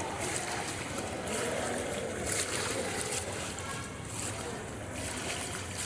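Floodwater sloshing and splashing as people wade through a knee-deep flooded street, with a splash every second or so.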